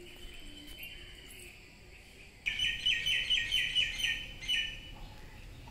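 A bird calling: a rapid run of high chirps, about five a second, starting about halfway in and lasting about two seconds.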